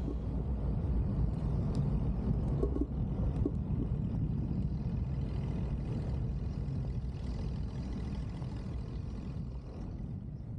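1999 Jeep Cherokee XJ driving: a steady low rumble of engine and road noise, with a few light clicks in the first few seconds, easing off a little near the end.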